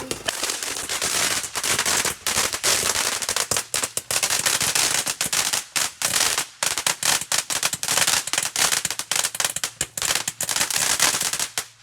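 Firecrackers going off in a rapid, continuous string of sharp bangs and pops, several a second, cutting off suddenly near the end.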